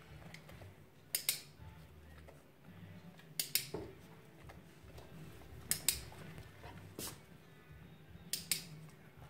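Dog-training clicker clicking five times, each a sharp click, most of them a quick double snap, every second or two: marker signals rewarding the dog for holding the book in clicker training.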